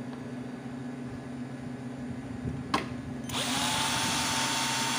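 Electric screwdriver drill backing out a screw from a metal chair frame. A single click comes first, then about two-thirds of the way in the motor spins up with a quick rising whine and runs steadily.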